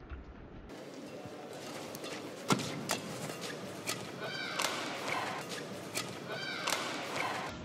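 Badminton rally: a run of sharp racket-on-shuttlecock hits, the loudest about two and a half seconds in, with short squeaks of players' shoes on the court.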